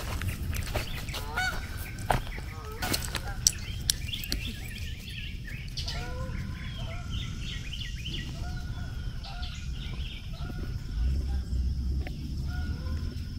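Birds calling over and over in short, curved calls, with a few sharp clicks in the first few seconds and a low rumble near the end.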